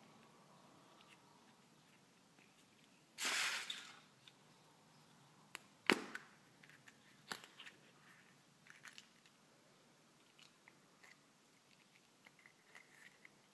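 Hands opening a Kinder Surprise egg: a brief crunching rustle about three seconds in, then a sharp snap as the yellow plastic capsule pops open about six seconds in, followed by a few light plastic clicks and faint crinkling as the toy parts come out.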